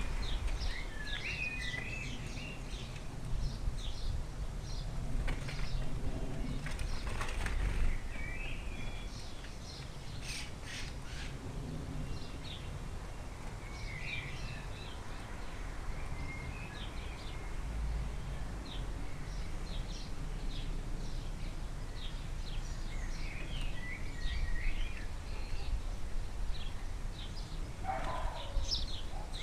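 Small garden birds chirping and twittering in many short high calls, with now and then the flutter of wings.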